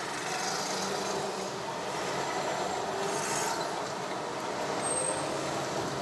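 City street traffic heard from inside a moving car: engine and road noise with a city bus running close alongside, and a brief hiss about three seconds in.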